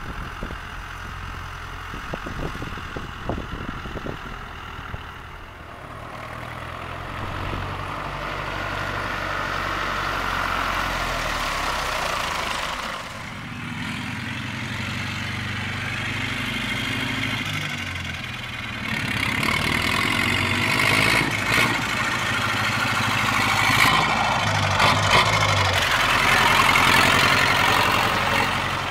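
International Harvester 644 tractor's four-cylinder diesel engine running as the tractor is driven, its pitch shifting a few times and growing louder during the last third.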